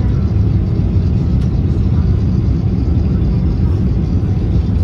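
Steady low roar of airliner cabin noise inside a Boeing 777-200ER on final approach: engine and airflow noise heard from a window seat.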